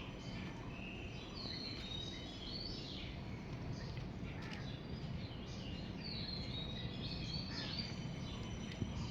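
Several small birds chirping repeatedly in short, quick calls over a steady low background hum.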